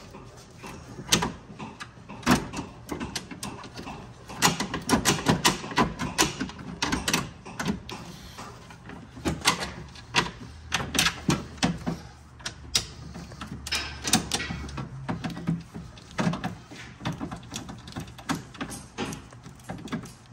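Irregular clicks, taps and rattles of metal bolts and the window regulator assembly being handled inside a car's door shell, as the fasteners are started by hand.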